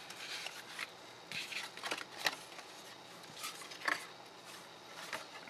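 Red cardstock handled and folded by hand: scattered soft rustles and light taps of card, the sharpest about four seconds in.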